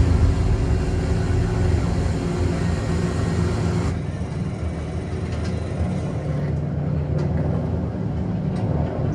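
Film soundtrack of a propeller bomber's engines droning steadily, deep and low, played back through a home-theatre system with a REL S/812 subwoofer. The sound turns duller about four seconds in.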